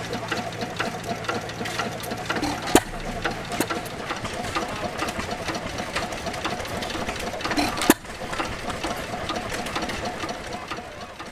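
Sandwich 4 hp stationary gas engine running, a steady rapid clatter of ticks from its moving parts, with two sharp pops about five seconds apart.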